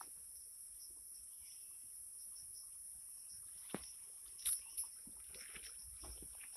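Steady, high-pitched chorus of insects such as crickets, with a few brief rustles, the loudest about four and a half seconds in.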